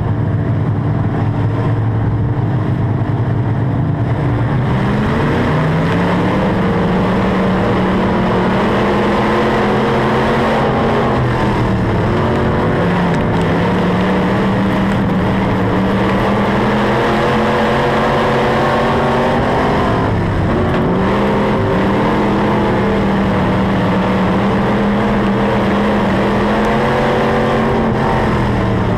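IMCA Sportmod dirt-track race car's V8 engine, heard from inside the cockpit. It runs at low revs at first, then pulls up hard about four seconds in. Its pitch then dips briefly three times, about eleven, twenty and twenty-eight seconds in, as the car eases off for the corners, and climbs again on the straights.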